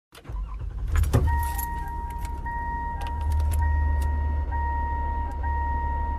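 Car sounds: keys jangling and a few sharp clicks about a second in, over a low steady engine hum. From just after the clicks a steady electronic warning tone sounds in the car, with soft regular pulses, like a key-in-ignition or door-ajar chime.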